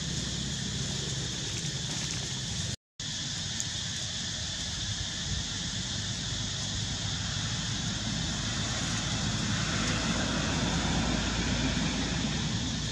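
Steady outdoor ambience of hiss and low rumble, with no distinct calls. The sound cuts out completely for a split second about three seconds in.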